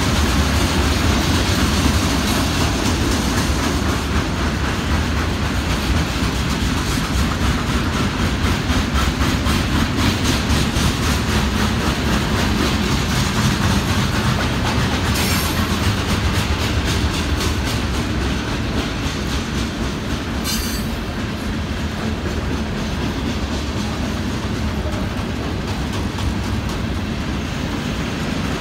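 Union Pacific freight train's cars rolling past, a continuous rumble with wheels clattering over the rail joints. Two short high-pitched wheel squeals come about halfway through and again some five seconds later.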